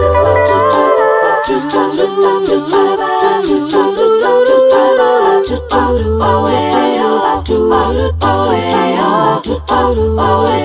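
A cappella vocal music: several voices singing in harmony over a pulsing low bass line, with short, sharp clicks throughout. The bass drops out for a few seconds in the middle and returns.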